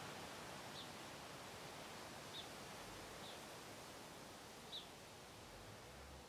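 Faint outdoor background hiss with a small bird giving four short, high chirps about a second apart.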